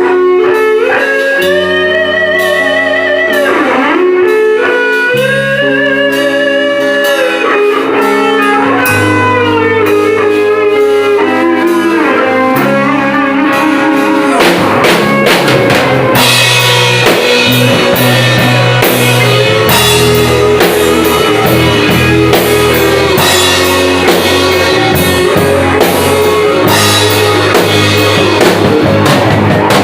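Rock band playing live: a lead electric guitar carries a slow melody of long held notes with vibrato over a bass line. Drums and fuller accompaniment come in about halfway through, and the band plays on together.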